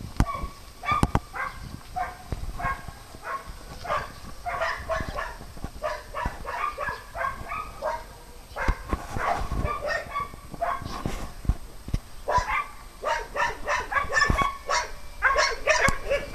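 Small dogs barking and yipping over and over, in quick runs of short, high barks.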